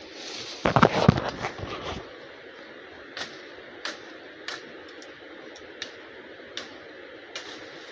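Footsteps crunching through dry leaf litter and twigs on a forest floor, with a loud burst of crackling and rustling about a second in, then single sharp snaps every half second or so.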